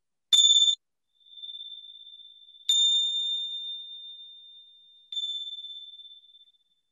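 A small meditation bell rung three times, about every two and a half seconds, marking the end of a mindfulness exercise. Each strike gives one high, clear ring that fades away; the first is cut off short.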